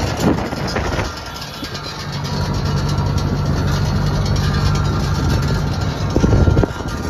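A motor vehicle's engine running at a steady pitch, settling in about two seconds in, with a couple of louder knocks near the end.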